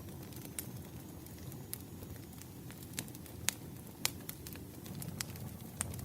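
Wood fire crackling: irregular sharp pops and snaps over a low steady rumble of burning, with two louder snaps a little past the middle.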